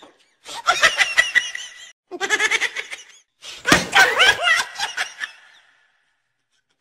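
People laughing in three bursts, with a sharp knock a little before four seconds in as a plastic bottle strikes a man's head. The laughter dies away after about five seconds.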